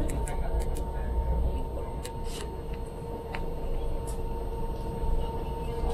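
Wuhan Metro Line 1 light rail train running, heard from inside the carriage: a steady low rumble with a constant hum and a few light clicks.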